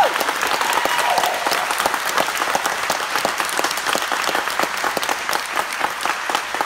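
Town-hall audience applauding, with a cheer right at the start.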